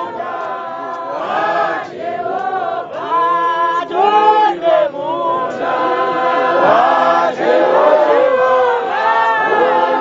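A church congregation singing a chorus together, many voices in unison without instruments.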